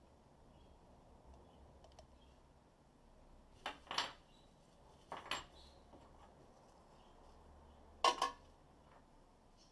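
Bread maker accessories (plastic measuring cup and spoon and a metal hook tool) clinking and clattering as they are handled: short double clinks about four and five seconds in, and a louder one about eight seconds in as something is set in the bread maker's baking pan.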